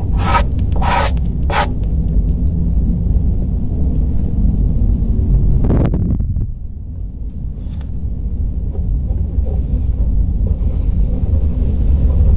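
A steady low rumble of background noise. Three quick scratchy pencil strokes across paper come in the first two seconds.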